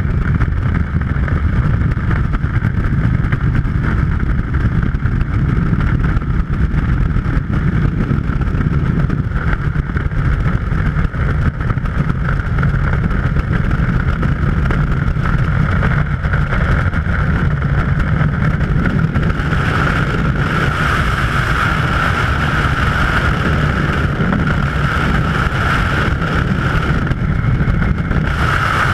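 Freefall wind rushing over the camera's microphone in a skydive: a loud, steady rush, with a higher whistling band that grows stronger about two-thirds of the way through.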